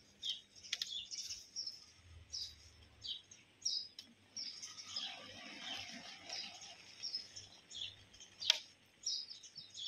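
Small birds chirping repeatedly, with milk splashing for a few seconds midway as it is poured from a steel bucket into a plastic bucket. A sharp click near the end.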